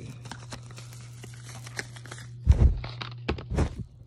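Plastic bubble wrap crinkling and a small cardboard box rustling as the item is pulled out of its packaging, with a few heavier handling thuds after about two and a half seconds. A low steady hum runs underneath.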